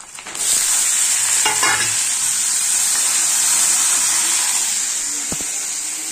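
Food frying and sizzling in a pan on a gas stove: a steady loud sizzle starts suddenly about half a second in. A wooden spatula scrapes and stirs in the pan a second and a half in, and there is a single short knock near the end.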